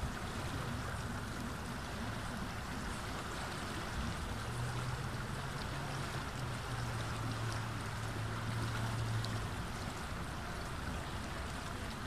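River water flowing steadily over and around rocks at the shallow edge, a continuous rush. A faint low hum sits under it from about four to nine and a half seconds in.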